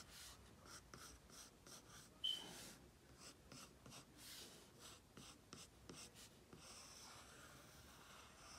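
Faint scratching of a graphite pencil on paper: many quick, light strokes going round as an ellipse is sketched freehand. About two seconds in there is a short high squeak.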